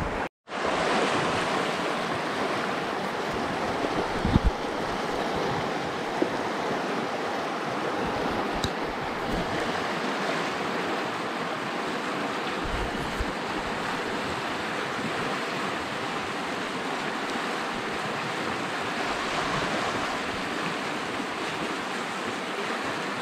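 Small river rapids rushing steadily, a constant even wash of water over rocks, with a couple of faint knocks in the first few seconds.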